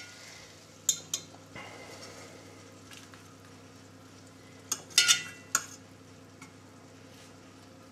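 A metal fork and spoon clinking against a frying pan and a stainless steel serving dish while cooked artichokes are lifted across. There are two sharp clinks about a second in and a louder run of clinks around five seconds in, over a faint steady background.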